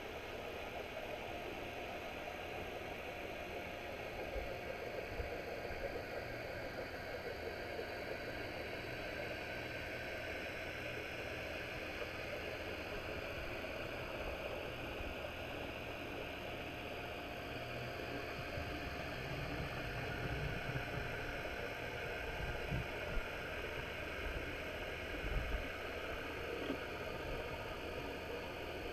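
Muffled underwater noise with a steady mechanical hum, picked up by a camera submerged under harbor docks. A few low thumps come between about 19 and 26 seconds in.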